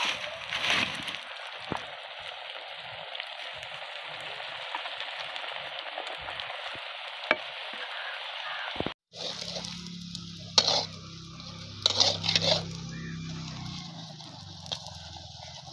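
Food frying in hot oil in a pan: a steady sizzle for about nine seconds, then an abrupt cut to a quieter stretch with a low hum and a few sharp clicks, like a utensil knocking against the pan.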